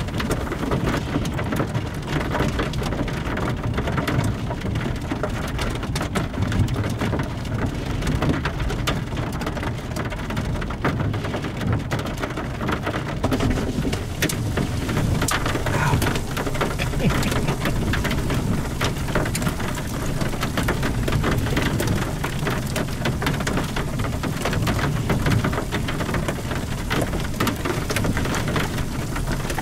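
Steady rain, with many individual drops ticking, over a continuous low rumble.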